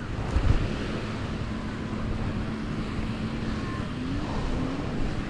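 Seaside ambience: wind rushing on the microphone over the wash of surf, with a gust buffeting the microphone about half a second in, and a faint steady drone through the middle.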